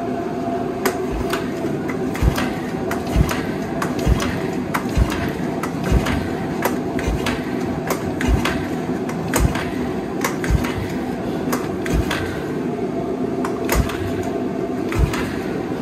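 Single-cylinder engine of a 1986 Yamaha Moto-4 350 ATV being pulled over again and again with the recoil starter for a compression test, plug out and gauge in the spark plug hole, throttle wide open: a low thump about once a second with clicks and rattles from the starter. A space heater hums steadily underneath. The gauge tops out around 105 psi, which the owners find low for an engine that hasn't run in years.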